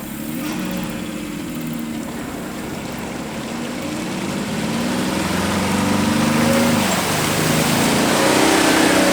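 Off-road vehicle engine revving unevenly under load, its pitch rising and falling, and growing louder over the last few seconds as it works during a tow-strap pull out of deep mud.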